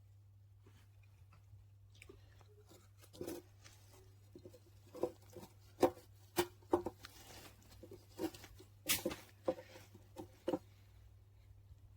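A series of light, irregular knocks and clicks, the sound of things being handled, beginning about three seconds in, over a steady low electrical hum.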